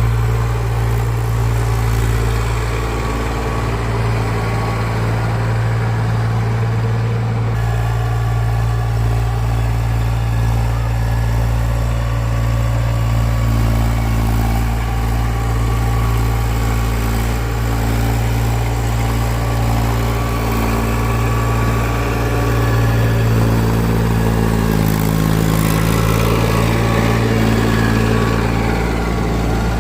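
Ploughing machine's engine running steadily, its note shifting slightly near the end.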